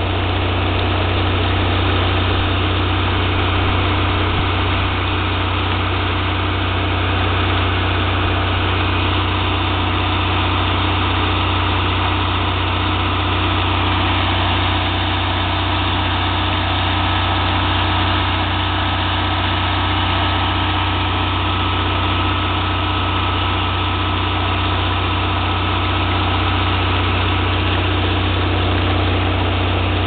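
Water tanker truck's engine running steadily at idle, a loud constant low drone with a faint regular beat in it, as the truck pumps water through the hose.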